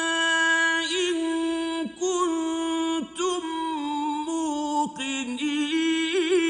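A male reciter chanting Quranic Arabic in a melodic, drawn-out recitation: one voice holding long notes with wavering, trilled ornaments. There are short breaks for breath about 2, 3 and 5 seconds in.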